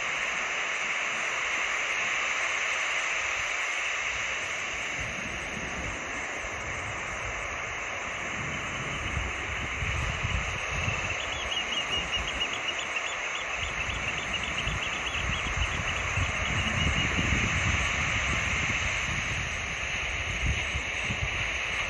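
Sea waves washing steadily on the shore, with wind buffeting the microphone in gusts from about a third of the way in. Midway, a bird calls a quick run of short high notes for a few seconds.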